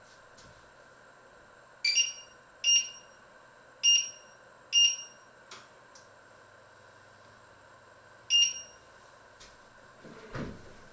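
Touch controls of a glass-ceramic electric hob beeping as its keys are pressed to switch on a cooking zone: five short, high beeps, four in quick succession and one a few seconds later. A dull thump near the end.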